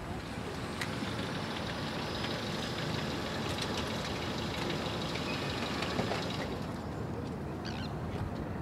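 A steady low engine rumble under outdoor background noise. A higher hiss with faint ticks sets in about a second in and fades after about six seconds.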